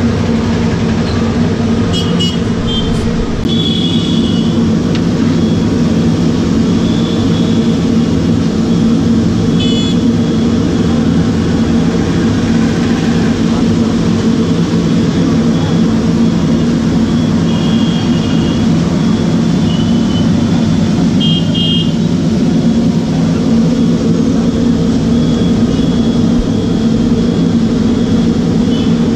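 Steady low hum of street noise with vehicle horns tooting briefly several times.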